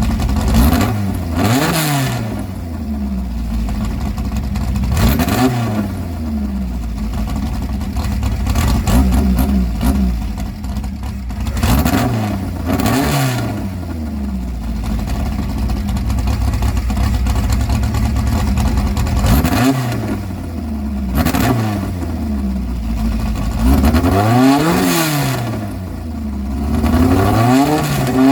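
Fournier Marcadier Barquette FM01's engine idling and being blipped, its revs rising and falling again about eight times, every few seconds.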